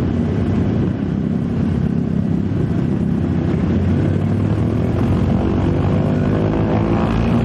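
Consolidated PBY Catalina's twin Pratt & Whitney R-1830 radial engines running steadily, their drone rising in pitch over the last couple of seconds as they speed up.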